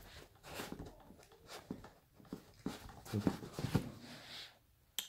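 Faint handling noise: scattered soft rustles and light knocks as a sneaker is turned over in the hand above its cardboard box.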